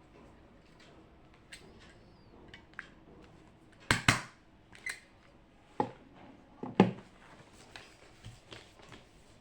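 Scattered light clicks and taps of small hard objects being handled, with louder knocks about four, six and seven seconds in.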